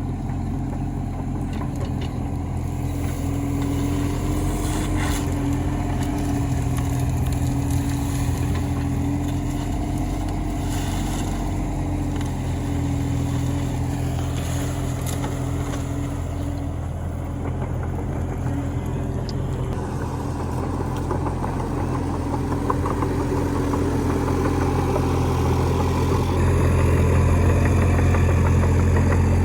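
Kubota U30 mini excavator's diesel engine running steadily as it digs, getting louder in the last few seconds.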